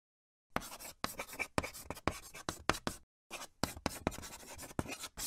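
Pen scratching across paper in a run of quick strokes, a handwriting sound effect timed to a signature being written out. It breaks off briefly about three seconds in and then carries on.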